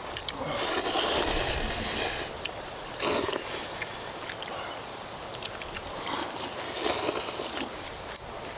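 People slurping spicy pork ramyun noodles: several hissing slurps, the longest lasting nearly two seconds, with light clicks of chopsticks against the bowls.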